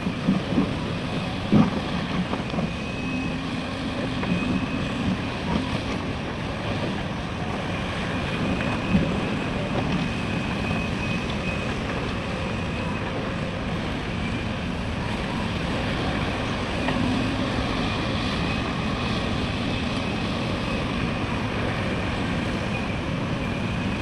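Heavy diesel earthmoving machinery running steadily, with a faint high whine over the engine noise and a few sharp knocks in the first two seconds and once more about nine seconds in.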